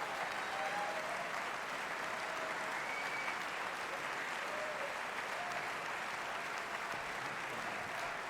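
An audience applauding steadily in a large hall, with a few whistles and cheers over the clapping.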